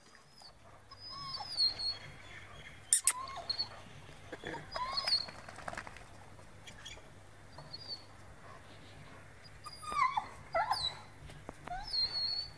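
Bully kutta dog whining in short rising and falling whimpers at intervals, fairly faint, over a low steady hum.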